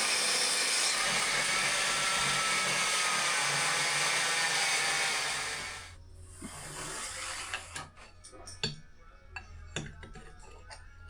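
Table saw, its motor fitted with new brushes, running steadily while cutting plywood, then shutting off about six seconds in. Scattered knocks and clatter of wood being handled follow.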